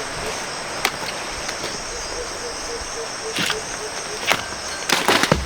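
Steady high insect drone with a short note pulsing about four times a second, and scattered sharp clicks and rustles, most of them near the end.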